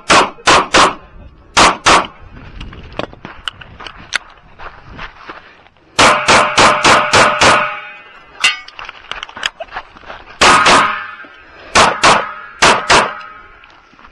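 Kahr CM-9 9mm pistol firing a stage: about twenty shots in quick strings of two to seven, with pauses of a few seconds between the strings.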